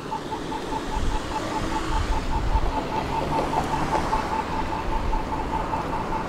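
Rapid, regular electronic beeping, about five beeps a second. Under it the low rumble of a tram swells about a second in.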